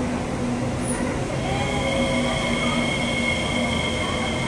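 SMRT North–South Line MRT train arriving slowly alongside an elevated platform, with steady rumbling wheel and running noise. About a second and a half in, a steady high-pitched squeal sets in and holds as the train rolls in.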